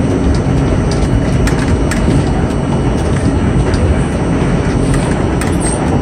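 R42 subway car running along the track, heard from inside the car: a steady loud rumble of wheels and running gear with a few short clicks.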